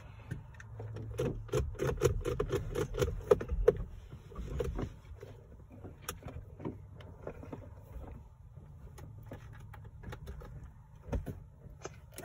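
Scattered light clicks and knocks of a toddler handling a car's steering wheel and dashboard controls, over a low steady hum.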